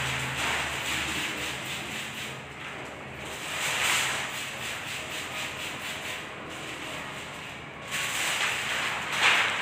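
Sheet of plastic window-tint film rustling and crinkling as it is handled against the glass, a noisy hiss that swells about four seconds in and again near the end.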